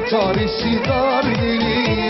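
Lively Rumelian (Balkan Turkish) folk-pop music with a steady beat and an ornamented, wavering melody line.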